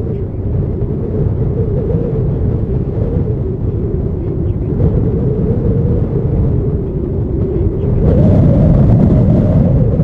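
Boeing 737-800's CFM56 jet engines on approach: a loud low rumble with a wavering hum. The hum rises in pitch and the sound swells about eight seconds in. Strong wind is buffeting the microphone.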